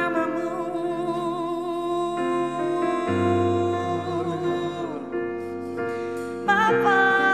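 Slow worship music: a Nord Stage 2 EX keyboard holds sustained chords under a woman's singing voice. A deep bass note comes in about three seconds in, and the music swells louder near the end.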